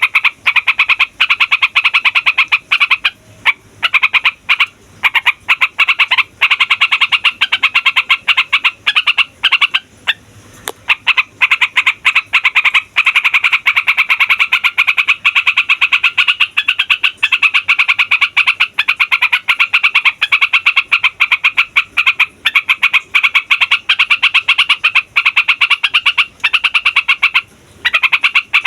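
Sooty-headed bulbul (trucukan) singing a long rolling song: a dense, fast run of notes broken by a few brief pauses.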